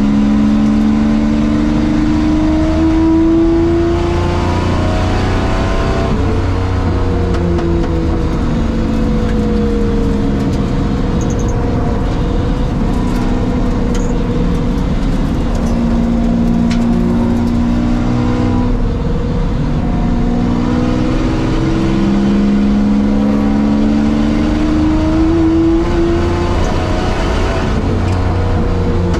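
Jaguar XJS V12 race engine heard from inside the cockpit at racing speed, its pitch climbing as it accelerates and dropping as the driver lifts, several times over, with road and wind noise underneath.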